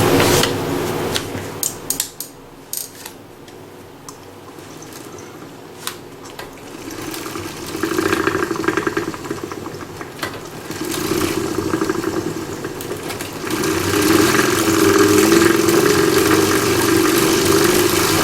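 CycleOps Fluid2 fluid-resistance bike trainer spinning under pedalling, its roller and flywheel whirring and rattling. It eases off with a few sharp clicks, then surges again about 8 s and 11 s in and stays up from about 14 s on.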